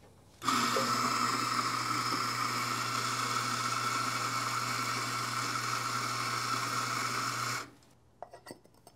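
Eureka Mignon Libra espresso grinder's motor and 55 mm burrs grinding coffee for about seven seconds: a steady whir over a low hum that cuts off abruptly when the grinder stops itself at its 16 g target weight. A few light clicks of handling follow near the end.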